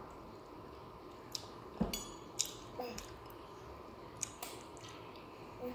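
A young macaque eating soft custard apple flesh: a handful of faint, wet mouth clicks and smacks, scattered a second or so apart.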